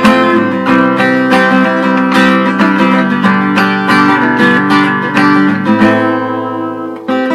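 Acoustic guitar strummed in chords, with no singing. The strumming thins out after about six seconds and dips briefly near the end.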